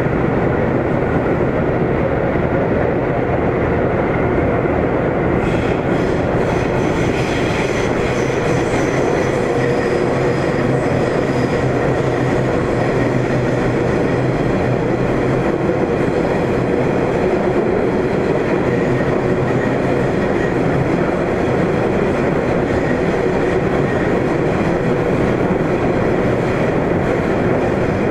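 Inside a Sendai Subway Namboku Line 1000-series car (Mitsubishi IGBT-VVVF) running between stations: a steady rumble of wheels on rails and running gear, with a faint high whine joining about five seconds in.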